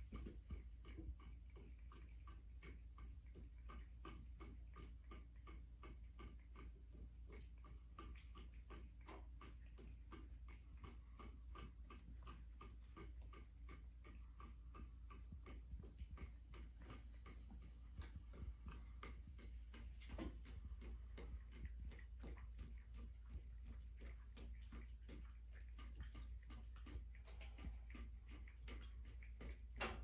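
Cat lapping water from a bathtub faucet: a long run of faint, quick soft clicks, about four a second.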